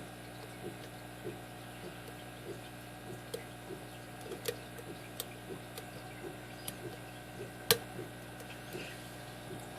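Small irregular clicks and ticks of a lock pick working the pins of a Kasp 5-pin brass shrouded padlock under a tension wrench, with one sharper, louder click about three-quarters of the way through.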